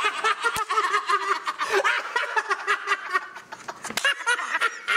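Several men laughing hard together, with one sharp slap about half a second in from a high five.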